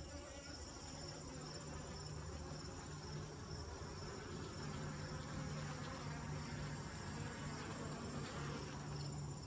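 Honeybees buzzing around a hive, a steady low hum.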